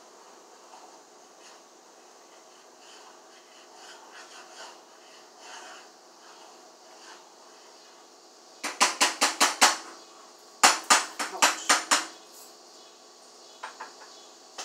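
A cooking utensil rapped quickly against a pot on the stove: two runs of about seven sharp taps each, starting about nine and eleven seconds in, with a few lighter clicks near the end.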